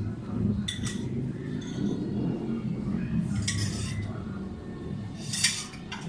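Three brief metallic clinks and scrapes of small tools and parts on a workbench during soldering work, the last the loudest, over a steady low background rumble.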